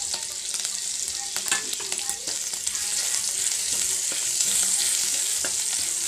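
Oil sizzling in a metal kadai as chopped garlic fries among dried small fish (kachki shutki), with a spatula scraping and clicking against the pan as it is stirred.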